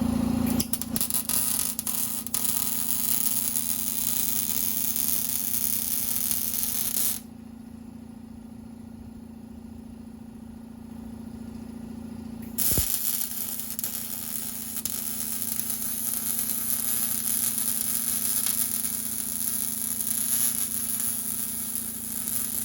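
Exhaust pipe being welded: a loud crackling, sizzling welding arc that runs for about six seconds, stops for about five, then starts again near the middle and runs on. A steady low hum sits underneath throughout.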